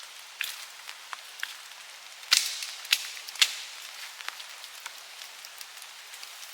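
Scattered sharp taps over a light steady hiss, with three louder knocks about half a second apart a little before the middle.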